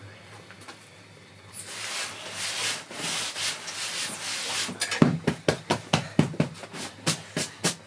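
Flour-covered hands rubbing over a cloth-covered bread cushion, a dry rubbing hiss, then from about five seconds in quick flat-handed pats on the cushion, about four a second.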